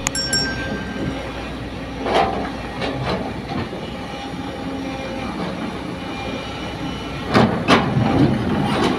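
Sumitomo hydraulic excavator working: its diesel engine runs steadily, with sudden metallic clanks and scrapes about two seconds in and twice again near the end.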